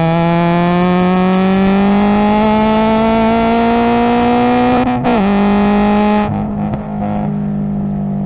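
Subaru BRZ race car's 2.0-litre flat-four engine heard from inside the cabin at full throttle in third gear, its pitch rising steadily as it revs out. About five seconds in, a quick upshift to fourth drops the pitch, and about a second later the engine note turns quieter and duller.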